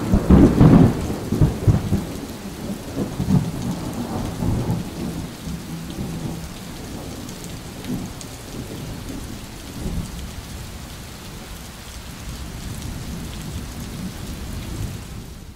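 Thunder rumbling over steady rain: a loud rumble in the first two seconds, then fainter rolls around four, eight and ten seconds in, with an even hiss of rain throughout.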